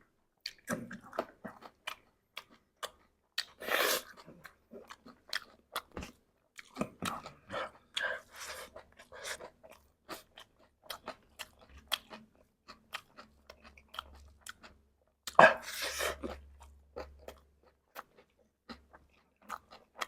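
Close-up crunchy chewing of a mouthful of chatpate: puffed rice and sev crackling between the teeth in quick irregular crunches, loudest in a few bursts about 4, 8 and 16 seconds in.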